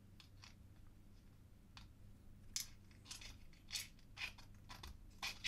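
Faint light clicks and scrapes of 3D-printed plastic: a plastic peg tapping and sliding against a plastic puzzle box as it is handled. A few scattered clicks at first, then a quicker run of them in the second half.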